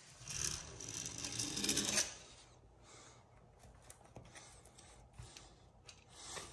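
A utility knife blade drawn through textured wallpaper, a scratchy slicing for about two seconds. After that, faint paper rustles and light ticks as the cut strip is handled and peeled back.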